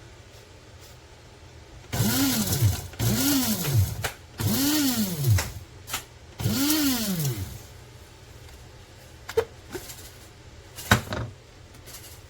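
TWOMEOW one-touch electric coffee grinder pulsed four times, its motor spinning up and winding down in each burst of about a second, grinding coffee at a coarse setting. Two sharp clicks follow near the end.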